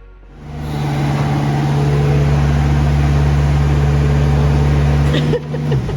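Steady low engine drone with a rushing noise, starting abruptly about half a second in; its pitch dips briefly near the end.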